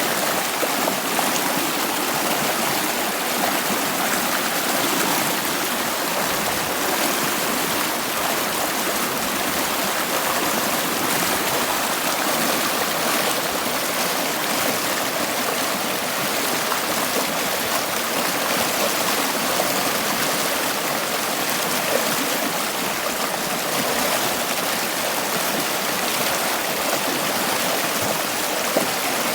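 Flowing stream water, a steady, even rushing and babbling.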